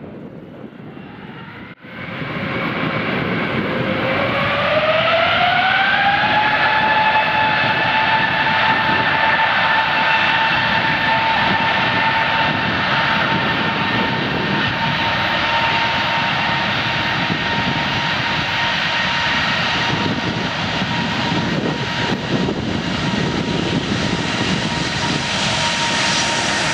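The four Engine Alliance GP7200 turbofans of an Airbus A380 spooling up to take-off thrust. The sound jumps up about two seconds in; over the next few seconds a whine climbs in pitch, then holds steady over loud, rough jet noise.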